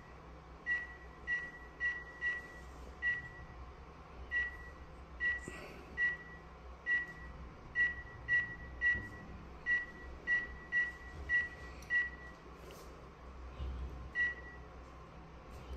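Key-press beeps from a Dahua face-recognition access control terminal as a password is typed on its touchscreen keyboard. About twenty short, identical high beeps come at an uneven typing pace, with a pause of about two seconds before a last one near the end.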